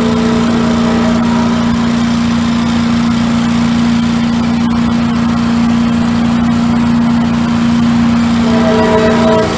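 Diesel locomotive passing with a steady low drone and rolling noise. Near the end its air horn starts to blow, a chord of several notes at once.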